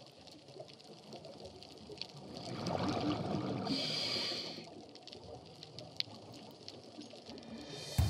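Underwater sound at a reef: faint hiss with scattered sharp clicks, and a rush of bubbles from a scuba diver's exhaled breath about two and a half seconds in, lasting about two seconds.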